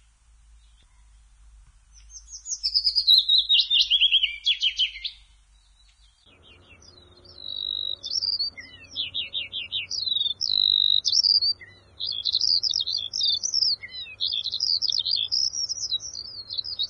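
Songbirds singing: a loud phrase of falling chirps and rapid trills about two seconds in, then after a short pause, near-continuous varied chirping and trilling.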